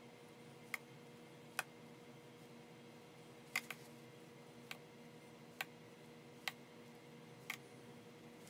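Faint, sharp clinks of a spoon tapping against a stainless steel mixing bowl and small glass bowls as thick mousse is scooped and dropped in: about eight taps at irregular intervals, roughly a second apart, over a steady low room hum.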